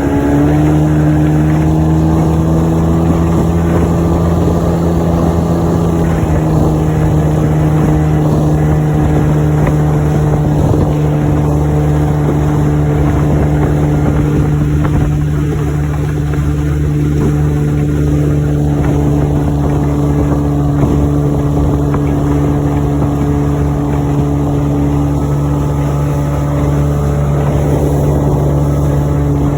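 A 1985 Evinrude 25 hp two-stroke outboard motor running steadily under way, its pitch rising just after the start and dropping slightly about six seconds in.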